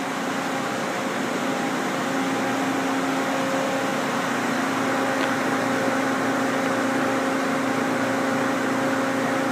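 Steady machinery hum: an even rushing noise with a low, constant drone and fainter higher tones that do not change.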